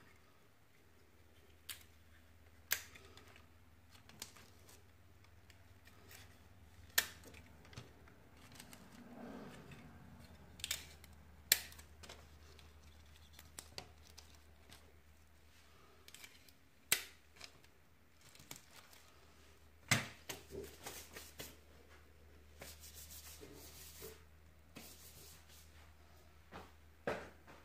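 Scattered clicks, taps and light rustles of hands handling painting supplies around a canvas on a plastic-covered table, with a brief run of rapid ticking near the end.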